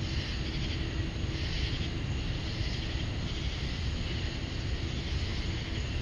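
Chorus of night-singing insects, the calls the uploader takes for cicadas, swelling and fading in a high shrill pulse about once a second. A steady low rumble lies underneath.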